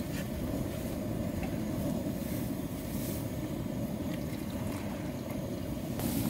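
Pot of fish-cake broth boiling on a portable gas stove: a steady bubbling, burner-flame rumble. About six seconds in, a brighter hiss of meat sizzling in a frying pan takes over.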